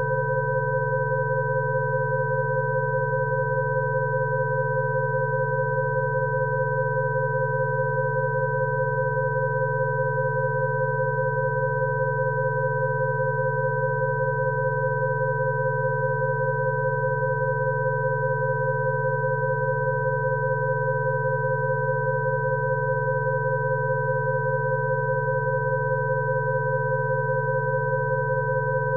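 Rife-frequency tones: several steady electronic pure tones at different pitches held together without change, over a lower, rougher tone.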